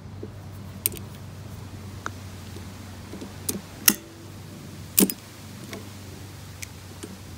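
Locking pliers working a steel hose clamp on a lawn mower's handle bar, giving about six sharp metal clicks and taps, the loudest two about four and five seconds in, over a steady low hum.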